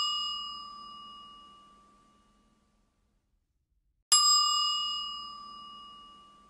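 A bell-like chime ringing out and fading away over about two seconds, then struck again about four seconds in and fading the same way.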